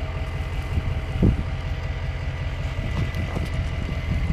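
Truck engine idling steadily, with one brief low thump about a second in.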